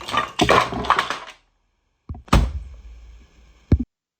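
Clattering and clinking as hard objects are handled, stopping about a third of the way in. After a short silence comes one sharp knock with a ringing tail, and a click near the end.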